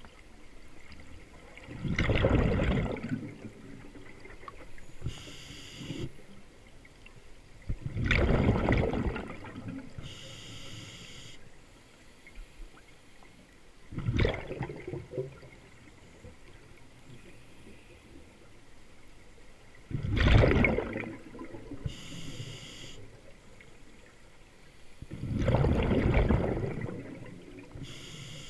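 Scuba diver breathing through a regulator underwater: a short hiss on each inhale and a rush of exhaled bubbles on each exhale. The breaths come about every six seconds, five exhales in all.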